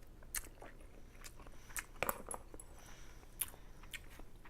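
A person chewing ramen noodles close to the microphone: a string of short, wet mouth clicks and smacks, the loudest about two seconds in.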